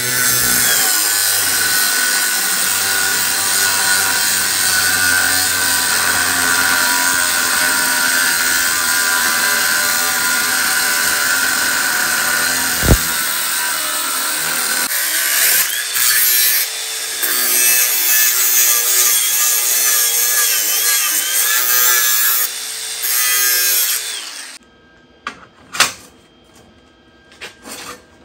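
Angle grinder with a thin cut-off wheel cutting through rectangular steel tubing clamped in a vise: a steady, loud whining grind lasting about 24 seconds with a couple of brief dips and one sharp click midway. It then stops, followed by a few short knocks.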